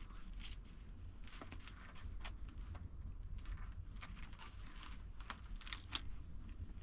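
Dry, thin flatbread crackling as it is broken and handled by hand: irregular light crackles and clicks, over a steady low rumble.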